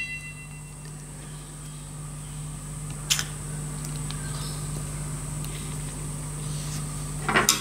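Steady low room hum, broken by a single sharp click about three seconds in and another near the end, as the small metal parts of a model diesel engine are handled.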